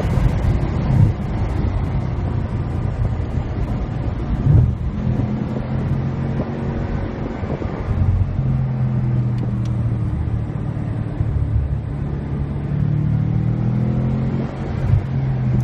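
Car engine and road noise heard from inside the cabin while driving. The engine note holds fairly steady, then climbs near the end as the car accelerates. There is a thump about four and a half seconds in.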